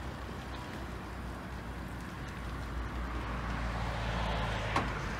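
A vehicle engine running steadily at low revs, with a broad rush of traffic noise building about three seconds in and a single short knock near the end.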